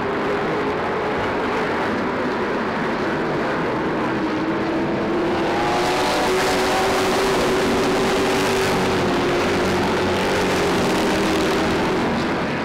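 A pack of Super Stock oval race cars running at speed, their engines droning together. The sound swells about six seconds in as the field passes close through the turn, then eases slightly near the end.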